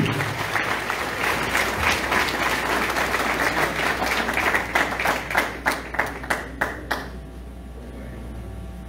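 Audience applauding: dense clapping that thins to a few scattered claps and stops about seven seconds in.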